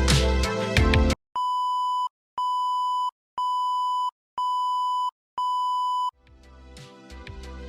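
Music stops about a second in, then five electronic beeps of one steady pitch follow, each just under a second long, about one a second, with silence between; music fades back in near the end.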